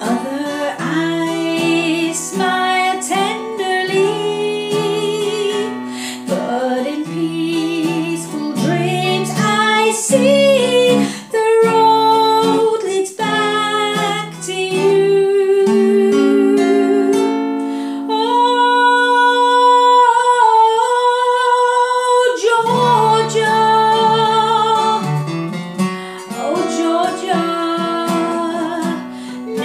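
A woman singing over a strummed acoustic guitar, with harmonica from a neck rack. Near the middle, one long note is held for about four seconds before the song moves on.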